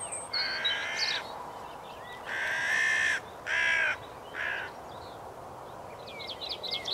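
Hooded crow cawing in alarm over its freshly shot mate: four harsh caws, the first two longer and the last two short. Faint small-bird chirps come in near the end.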